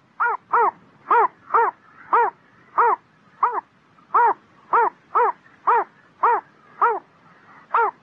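A small heron calling a quick series of short single-note calls, about two a second at uneven spacing, each note rising and then falling in pitch.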